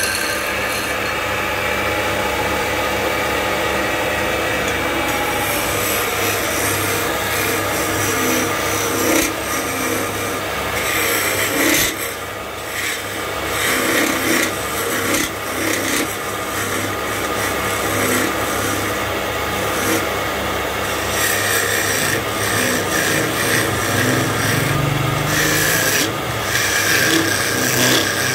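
Wood lathe running while a hand-held turning chisel cuts into the spinning wooden blank: a rough, continuous scraping of the tool over a steady low motor hum. The scraping swells and eases as the cut is pressed and lifted.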